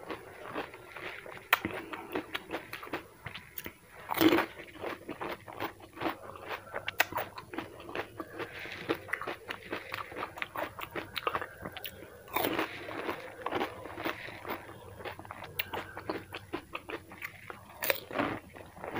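Pani puri being eaten close to the microphone: crisp hollow puri shells crunching under bites, with chewing and small crackles in between. The loudest crunching bites come about four seconds in, about twelve seconds in and near the end.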